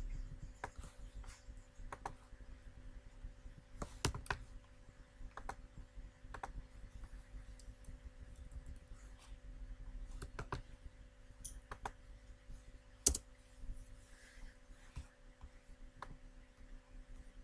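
Scattered, irregular clicks of a computer mouse and keyboard over a faint steady electrical hum, with one sharper click near the end.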